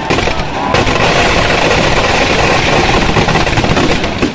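Firecrackers packed inside a burning Ravana effigy going off in a loud, rapid, continuous crackle.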